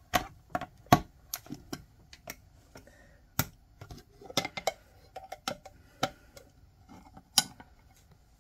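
A church key prying the lid off a small metal paint can, working around the rim: a run of sharp metal clicks and pops, the loudest about a second in and again near the end as the lid comes free.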